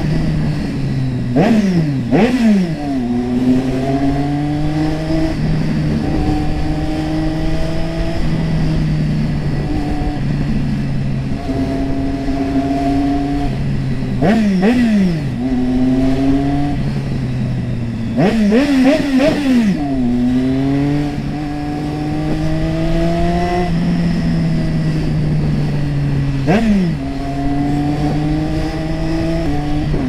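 Triumph Street Triple 675R's 675 cc inline three-cylinder engine running under way, its note climbing slowly as it pulls. Several times the revs drop sharply and pick back up: twice a couple of seconds in, a few times around the middle, and once near the end.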